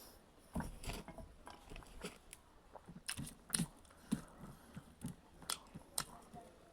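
A person eating close to the microphone: chewing with irregular sharp crunches and mouth clicks, about a dozen over a few seconds.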